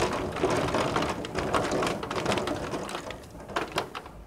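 Rain falling, with many separate sharp drop hits close by. It eases about three and a half seconds in.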